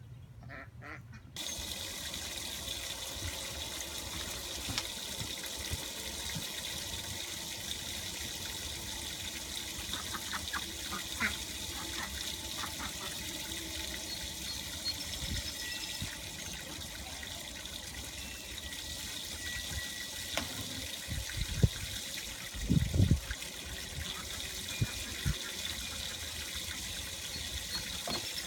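Garden hose running full onto a wooden deck, water spraying and splashing steadily across the wet boards. A few low thumps come about three-quarters of the way through.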